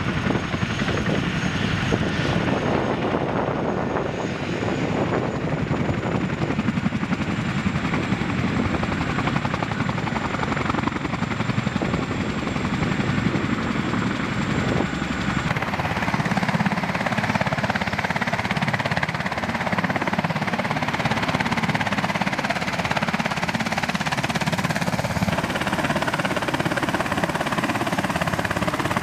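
Helicopter rotor and turbine noise: a CH-47 Chinook tandem-rotor helicopter flying away with a sling load. About halfway through the sound changes abruptly to a UH-60 Black Hawk running on the ground close by.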